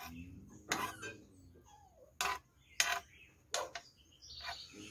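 Eating with cutlery: about four sharp clicks and taps of a utensil against a plate, spaced a second or so apart, over a faint low hum.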